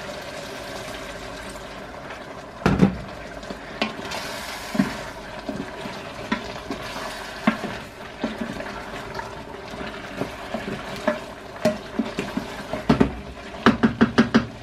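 Hot water poured from an electric kettle into a pot of simmering meat stew, a steady splashing hiss, then a loud thud about three seconds in. A wooden spoon then stirs the stew, knocking and scraping against the pot, with quick runs of knocks near the end.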